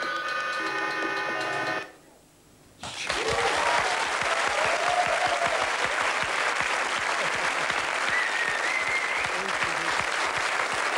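A held chord of mobile-phone ringtones, played by an ensemble of phones, stops about two seconds in. After a brief pause an audience breaks into steady applause with a few cheers.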